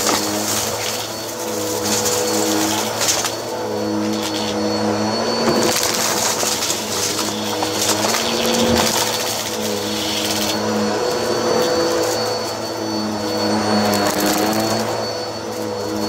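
Bissell CleanView upright vacuum cleaner running on carpet, its motor hum wavering slightly in pitch as it is pushed back and forth, with stretches of louder airy hiss every few seconds.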